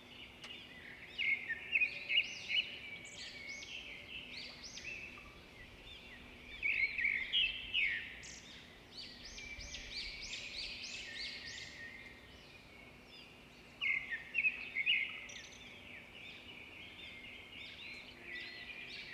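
Small birds chirping in many quick, overlapping high calls, busiest about a second in, around seven seconds in and around fourteen seconds in.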